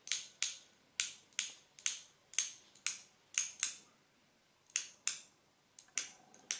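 Gedore fine-tooth ratchet wrench turned slowly by hand, its pawl clicking over the teeth one click at a time, about two crisp clicks a second with a short pause about four seconds in. The clicks are being counted to find the tooth count: 19 per quarter turn, a 76-tooth ratchet.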